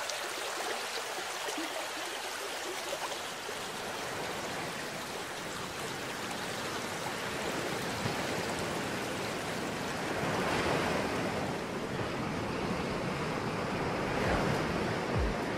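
Surf washing onto a sandy beach: a steady rushing of water that swells about ten seconds in and again near the end.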